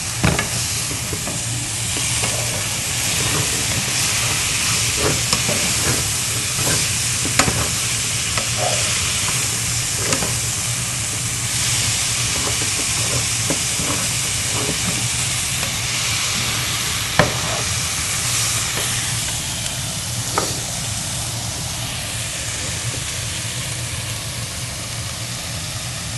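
Ground meat, onion and green peppers sizzling in a nonstick frying pan as they are stirred with a plastic spatula, a steady frying hiss with a few sharp clicks and taps scattered through it.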